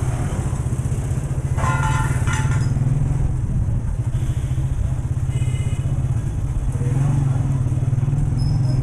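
Motorcycle engine running steadily at low speed while riding, a continuous low rapid pulsing.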